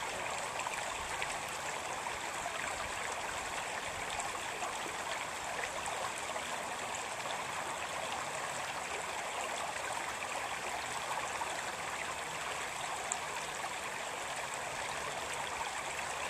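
Shallow stream running over a stony bed: a steady sound of moving water.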